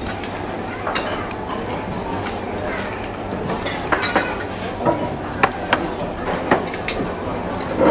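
Metal utensils clinking and scraping, a handful of sharp clicks over a steady background hubbub.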